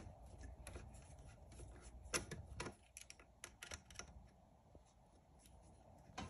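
Faint, irregular small clicks and scrapes of a screw being tightened on a car's air intake at the throttle body, with the most clicks a couple of seconds in.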